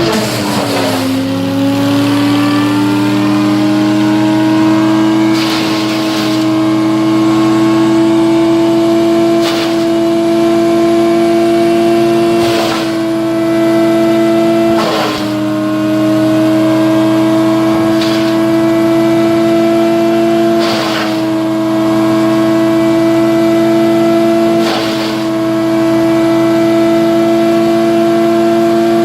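Chuck-and-duck drum wood chipper running at high speed with a steady hum and sharp cracking every few seconds as wood is chipped. Its pitch sags briefly and climbs back several times under load.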